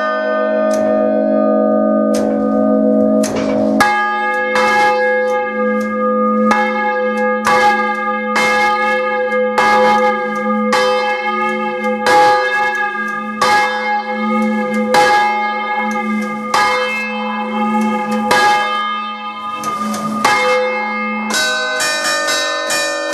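Three church bells rung close up for the traditional Umbrian rinterzo: quick, regular bell strokes about every three-quarters of a second ring into one another over the deep, lingering hum of the largest bell. Near the end the pattern of strokes changes.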